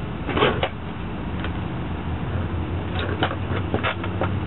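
Air-over-hydraulic foot pump running with a steady hum, powering a hydraulic bead-breaker ram against the bead of a split-ring truck tire. A few short, sharp clicks and creaks sound over it.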